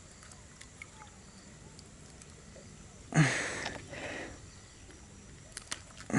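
A quiet stretch with a few faint clicks of hands working a lure out of a bass's mouth, and one loud breath out close to the microphone about three seconds in, fading over about a second.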